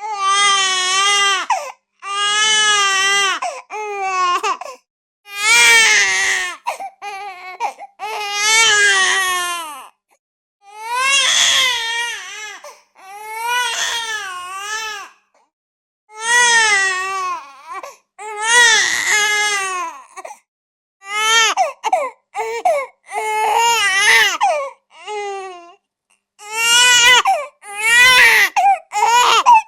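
Baby crying: a run of loud wailing cries, each a second or two long with a wavering pitch, broken by short gasping pauses.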